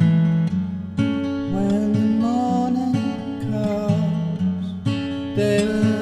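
Song without vocals: an acoustic guitar strumming chords, with a new strum at the start, about a second in and near the end. A held higher melody line comes in over it about a second and a half in.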